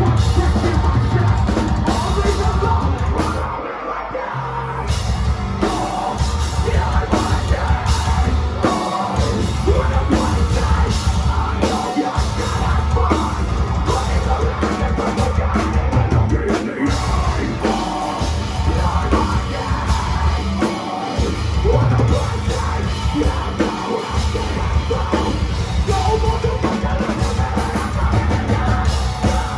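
Live metalcore band playing loud heavy music: distorted electric guitars, bass and a drum kit with screamed vocals, the heavy low-end riff breaking off for short stops several times.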